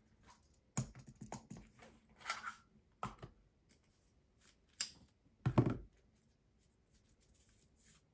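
Stationery being handled and set down on a desk: scattered light taps and knocks of a correction-tape dispenser and pencil on the tabletop, with a brief rustle, and the loudest knock about five and a half seconds in.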